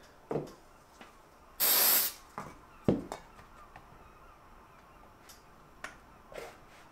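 Aerosol spray can giving one short hiss, about half a second long, on the glued wing joints. There are a few knocks of parts being handled on the tabletop, the sharpest about a second after the spray.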